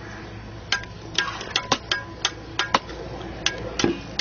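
Bricks being laid in mortar with a mason's trowel: about a dozen sharp, irregular knocks and clinks of trowel and brick.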